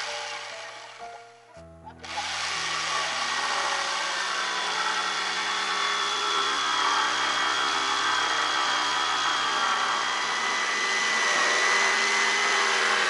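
Handheld power tool working wood, running loud and steady with a high whine; it stops about a second and a half in and starts again half a second later. Background music with slow low notes plays alongside.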